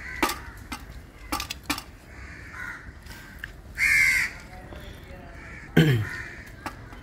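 A few light clicks of dishes during a meal, one loud harsh caw of about half a second about four seconds in, and a short low voice sound falling in pitch near six seconds.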